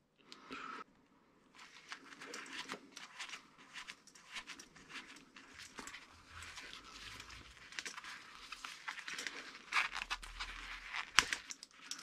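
Gloved hands handling insulated wires and crimp terminals: faint, irregular rustling and crinkling, with a few small sharp clicks near the end.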